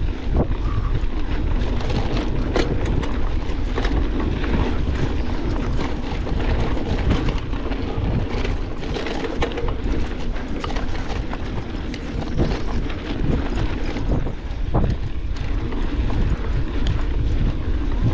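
Wind buffeting an action camera's microphone while a mountain bike is ridden over rough trail, with the bike rattling and knocking over bumps many times.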